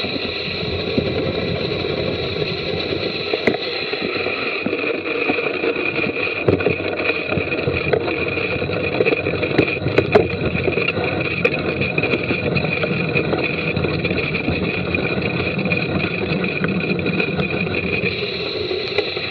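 A mountain bike ridden along a wet, muddy trail, heard from a camera on the rider: steady rumble and rattle of the tyres and bike, with a few sharper knocks over bumps.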